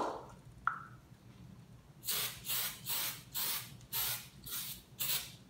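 Aerosol can of non-stick cooking spray hissing in seven short sprays, about two a second, as it coats a skillet.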